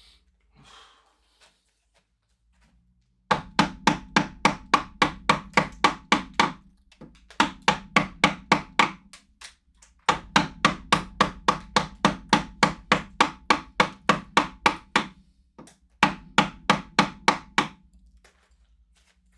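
A wood chisel being struck into hard wood in quick, even blows, about four a second. The blows come in four runs with short pauses between them.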